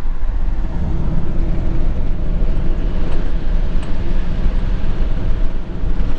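Camper van driving along a road, heard from inside the cab: a steady low engine and road rumble.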